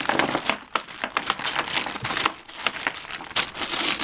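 Small metal pieces from a Craftsman tool set clinking and rattling against one another in quick, irregular clicks as they are handled and sorted.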